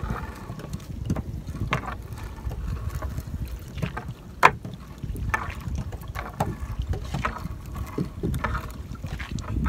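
Fishing net being hauled by hand into a small boat: wind rumbling on the microphone, with scattered knocks and rustles from the net and the hull, the sharpest about four and a half seconds in.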